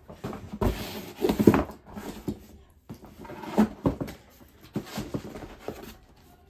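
Handling noise from an aluminium tripod and small parts being moved over a cardboard box: irregular knocks, clatter and rustling. The loudest knocks come about a second and a half in and again near the middle.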